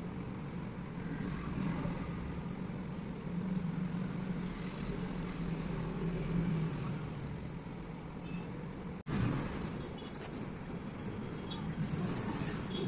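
Steady low rumbling background noise with a low hum, broken by a brief dropout about nine seconds in.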